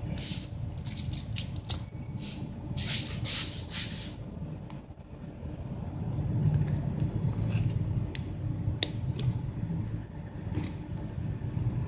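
Plastic wrapping and tape on a cardboard box rustling and crinkling as it is handled, followed by a few sharp clicks. A steady low rumble runs underneath and gets louder about halfway through.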